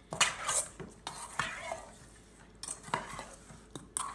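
Metal spoon scraping and clinking against a stainless steel mixing bowl in irregular strokes, stirring raw chicken drumsticks in a spice marinade.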